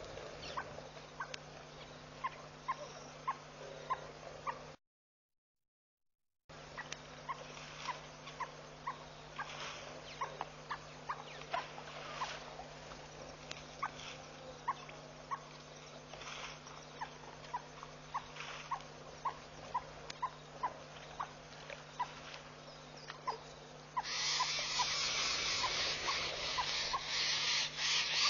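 Short, high chirping calls from a small animal, repeating about once or twice a second over a steady low hum. The sound cuts out completely for a second or so about five seconds in, and a loud rushing hiss comes in about four seconds before the end.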